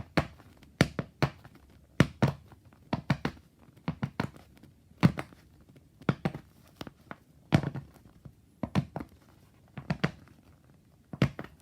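Arm bands rubbing and squeaking. Short, sharp rubbing sounds come in pairs about once a second in a steady rhythm.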